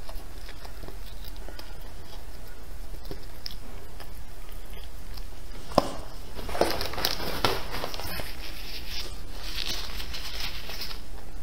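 Close-miked eating: soft chewing and sucking on a spicy braised pig tail, a sharp click about halfway through, then two longer stretches of slurping broth from a bowl.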